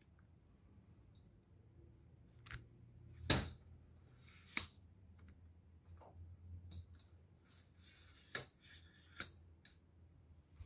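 Handling noise from a phone being picked up and repositioned while it films: a few scattered clicks and knocks, the loudest about three seconds in, with a short stretch of soft rustling near the end.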